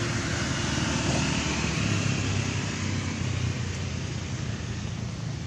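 Motor scooters passing on the road, a steady engine and traffic hum that eases a little near the end.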